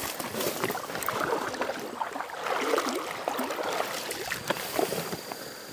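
Boots sloshing and splashing through shallow creek water, one wading step after another.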